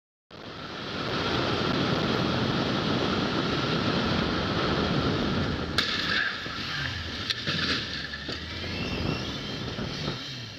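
Steady road and engine noise from inside a moving car. About six seconds in, a sharp bang of a car collision is followed by a few more knocks and clatter.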